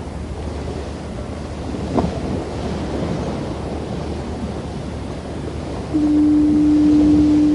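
Surf washing on a beach as a steady hiss of waves, with a short sudden falling sound about two seconds in. About six seconds in, a foghorn sounds one long, steady, low blast.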